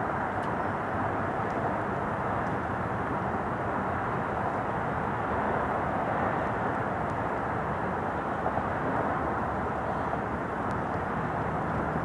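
Distant Boeing 747-8F freighter's four GEnx-2B67 jet engines at climb power after takeoff, heard from the ground as a steady, even jet noise with no distinct tones and no change in level.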